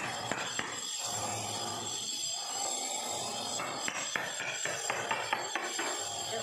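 A hammer striking a steel chisel and an axe blade wedged under a floor tile to loosen it from its mortar bed: sharp metal knocks, a few at first and then several in quick succession past the middle, over a steady scraping of the blade against the mortar.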